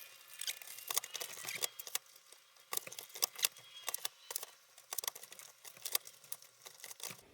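Cables and plastic parts being handled inside a desktop computer case: irregular clicks, taps and rustling as the wiring is rearranged to clear a cable-management problem.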